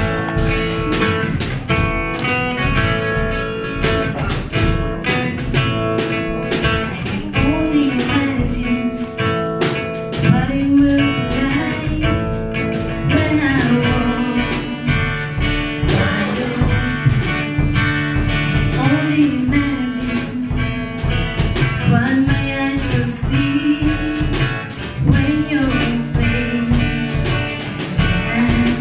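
Music with strummed acoustic guitar, and a gliding melody line that comes in about seven seconds in.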